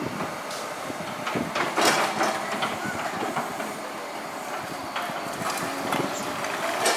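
Liebherr crawler excavators working on brick demolition rubble: the engine runs under a steady clattering of steel tracks and shifting rubble. Sharp knocks stand out about two seconds in and again near the end.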